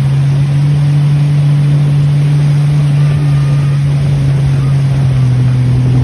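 Motorboat engine running steadily at speed while towing, a constant low drone that holds one pitch throughout.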